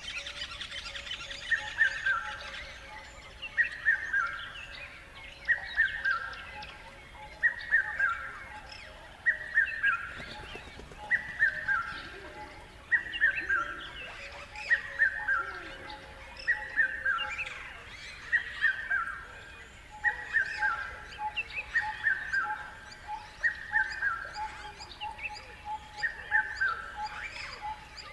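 Birds singing and chirping together, led by one bird repeating a short falling phrase about every two seconds.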